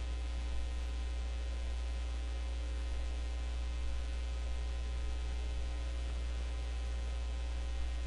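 A steady low electrical hum with faint hiss, unchanging throughout.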